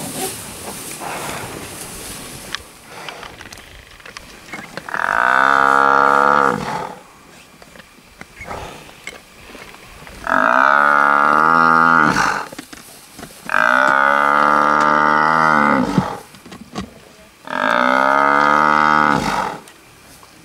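Cape buffalo bellowing four times in long, loud calls, each dropping in pitch at the end: the distress bellow of a buffalo with lions on its back.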